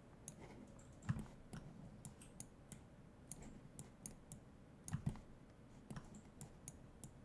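Faint, irregular clicks of a computer mouse and keyboard, with two louder taps about a second in and about five seconds in.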